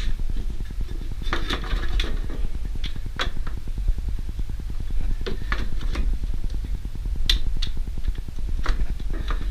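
Scattered clicks and light clanks as the cover of a Briggs & Stratton lawn mower engine is fitted back on and worked into place around the oil dipstick tube, over a steady low hum.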